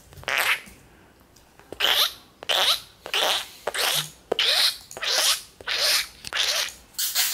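A person making short, hissy mouth noises to lure a cat: one near the start, then from about two seconds in a steady run of about two a second.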